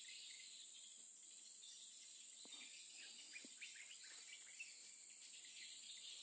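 Faint outdoor ambience: a steady high-pitched drone of insects, such as crickets, with a few faint short chirps scattered through the middle.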